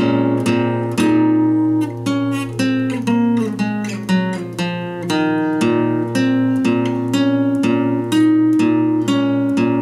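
Solo acoustic guitar playing an improvised instrumental, notes and chords picked about twice a second, each ringing on into the next.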